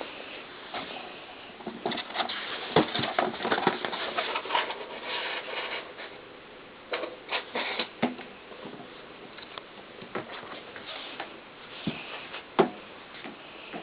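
A cat playing with a balloon: a dense flurry of quick taps and scuffs for a few seconds, then a few scattered taps, with one sharper tap near the end.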